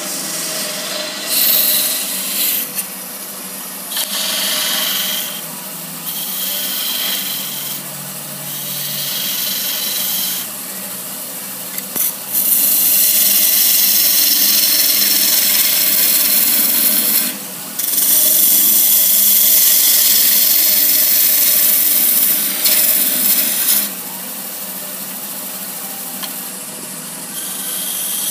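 Wood lathe running while a hand-held turning tool cuts the spinning wooden goblet's stem, a hissing, scraping cut that comes and goes in passes of a second or two. Near the middle come two long, unbroken cuts, each several seconds long.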